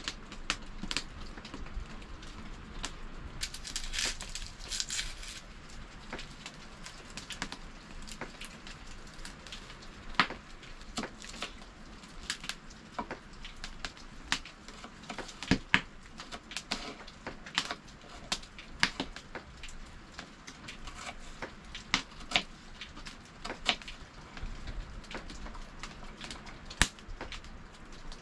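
Wood fire crackling: irregular sharp pops and snaps over a low steady hiss, with a denser flurry of crackles about four seconds in.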